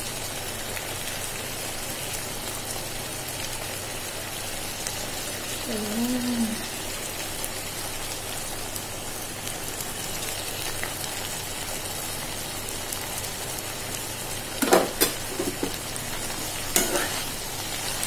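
Boiled jackfruit seeds and green chillies sizzling steadily in oil and a little gravy in a pan. Near the end a metal spatula scrapes and knocks against the pan a few times as stirring begins.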